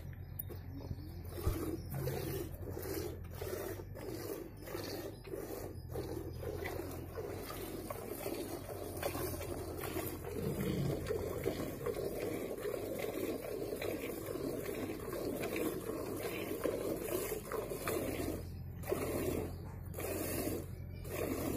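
Cow being milked by hand: jets of milk squirting into a metal pail in a steady rhythm, about two squirts a second.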